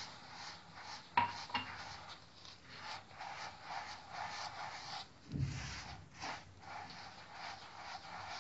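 Gloved hand rubbing oil through dry semolina in a large dish, giving repeated gritty swishes as the grains are worked, the stage before the dough is kneaded with warm water. A sharp click sounds about a second in and a dull thump a little past the middle.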